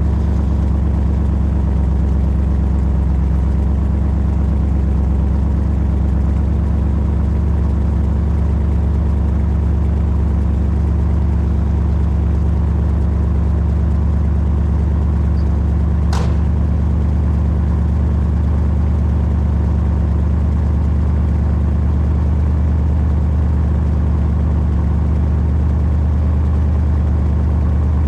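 Ford 390 FE V8 in a 1959 Thunderbird idling steadily, with one brief click about halfway through.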